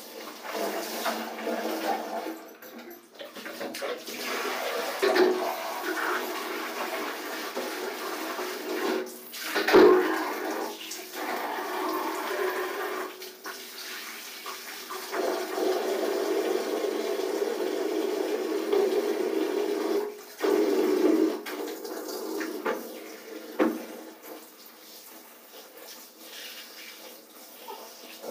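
Clothes being washed by hand in a bucket of soapy water: irregular sloshing, squeezing and splashing, with a sharp splash or knock about ten seconds in. A steadier stretch of water running from a tap comes midway through.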